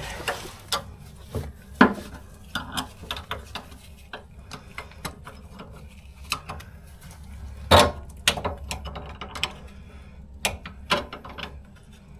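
A large wrench working on metal fittings under a car: irregular clinks and knocks of tool on metal, with two louder knocks about two seconds and eight seconds in.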